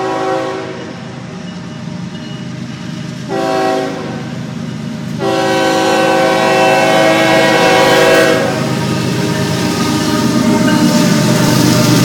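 Diesel locomotive air horn sounding a chord of several notes: a blast fading out just after the start, a short blast about three seconds in, and a long blast from about five to eight seconds in. After the horn, the locomotive's engine and wheels on the rails grow louder as it draws close.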